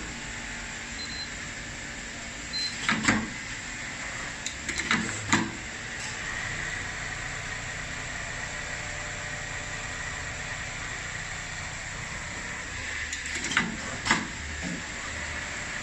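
Industrial template sewing machine running with a steady mechanical hum. Sharp clunks come singly or in pairs about 3 s, 5 s and 14 s in.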